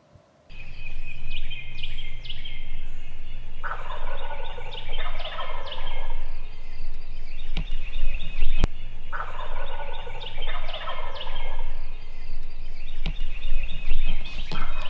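Wild turkeys gobbling in a steady run of overlapping gobbles that starts abruptly about half a second in. The fullest, loudest gobbles come about four and nine seconds in, with a low steady hum underneath.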